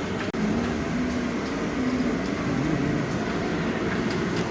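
Heat cannon running steadily, a continuous blowing noise with a faint wavering hum, as used to warm the room and the PVC film while a stretch ceiling is fitted.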